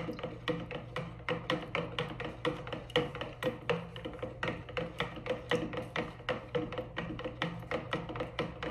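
Plastic measuring jug stirred briskly with a stick, the stick clacking against the jug's sides in a quick, even run of taps, about four or five a second.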